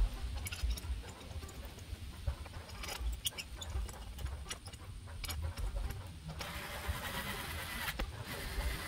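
Light metallic clicks and taps as parts are fitted back onto a Briggs & Stratton lawnmower engine by hand, over a low rumble. About two-thirds of the way in, a steady hiss sets in.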